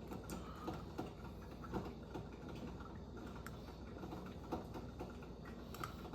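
Light, irregular clicks and ticks, roughly one or two a second, over a faint steady low hum.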